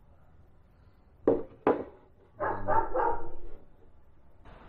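Dog barking: two short sharp barks a little over a second in, then a quick run of about four barks.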